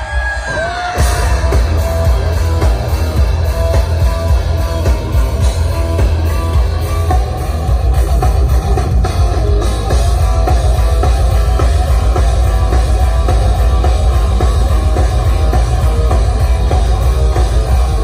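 Heavy metal band playing live through a festival PA, with distorted electric guitars and drum kit over heavy bass. A short gliding guitar note comes first, and the full band comes in loud about a second in.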